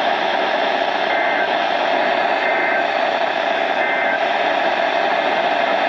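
Steady radio static hiss from a weather radio receiver with no transmission on it, with three faint short tones in it.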